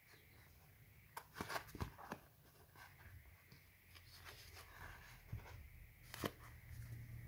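Scored polypropylene sheet being folded by hand: faint crinkling and sharp plastic crackles as it bends along its score lines, a cluster of them about a second in and another single loud crackle near the end.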